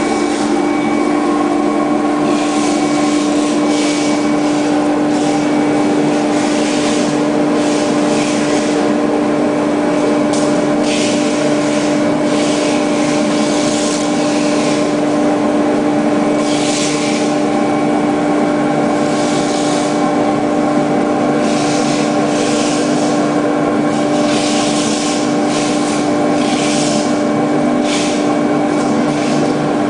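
CNC contour foam-cutting machine with an oscillating blade running: a steady machine hum with a strong even tone, with hissing swishes recurring every second or two.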